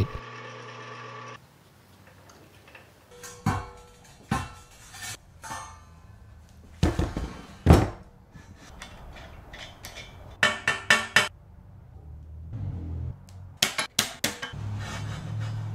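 A small metal lathe runs briefly and stops about a second in. It is followed by sharp metallic clinks and knocks of steel jig parts being handled on a steel base plate, some single and some in quick clusters of four or five strikes.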